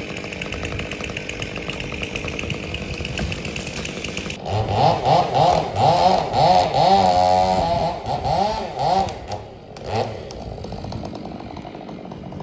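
Chainsaw running steadily at first. About four seconds in it is revved hard for around five seconds, the pitch rising and falling repeatedly and dipping as it works through the wood, then it drops back to a lower, quieter running sound.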